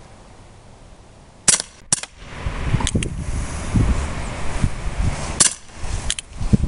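Colt Single Action Army CO2 BB revolver firing: two sharp pops, about a second and a half and five and a half seconds in, each followed shortly by lighter clicks. The clicks fit the hammer being cocked or the BB striking the target. A low rumble runs underneath from about two seconds in.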